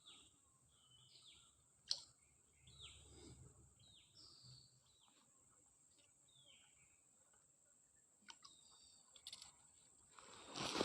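Faint bird chirps: a series of short calls, each sweeping downward, over the first half, with a sharp click about two seconds in and a few more clicks near the end.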